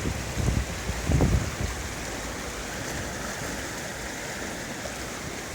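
Fast-flowing floodwater rushing steadily, a continuous hiss of moving water. Two low buffets on the microphone come in the first second and a half.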